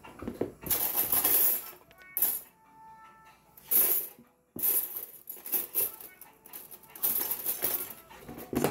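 Background music, with several short bursts of rustling and crinkling from a coconut cream packet being handled.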